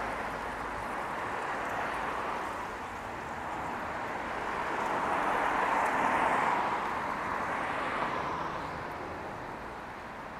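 City street traffic: a steady noise of passing vehicles, with one growing louder toward the middle and fading away again.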